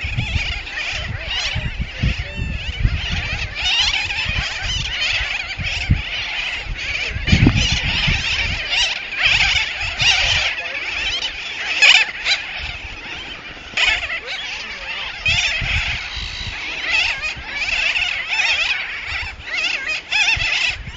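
Seabird colony: many birds calling at once in a dense, continuous chatter, with an uneven low rumble underneath.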